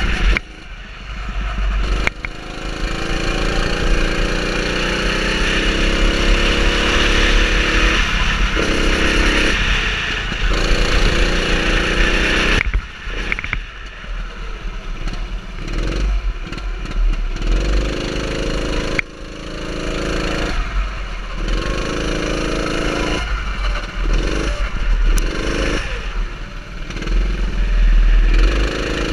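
Go-kart engine heard from the driver's seat while lapping a track: the revs climb on the straights and fall off again and again as the throttle is lifted, with a few sudden drops.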